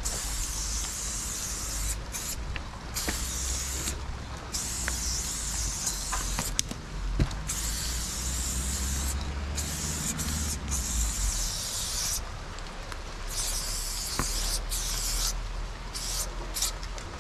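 Aerosol spray paint can hissing in long bursts with short pauses between strokes, as lines are painted onto a brick wall. A steady low rumble runs underneath.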